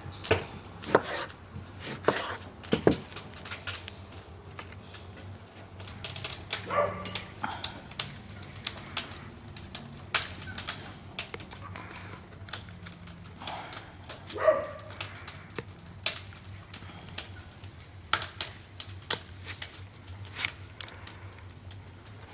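A knife cutting an orange on a wooden board, then hands pinning a stuffed raw goose's skin shut with wooden toothpicks over a parchment-lined baking tray: scattered clicks, taps and rustles. An animal calls twice, about seven and fourteen seconds in.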